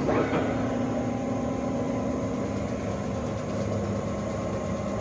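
Monarch 612 tool room lathe running under power with the spindle in low range, about 27 RPM: its motor and headstock gearing give a steady, even hum. The seller takes the sound as that of a high-quality headstock.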